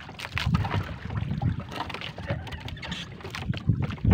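A fishing net being hauled in by hand over the bow of a small wooden outrigger boat: irregular knocks, clicks and rustles of net and hands against the hull, over a steady noise of sea and wind.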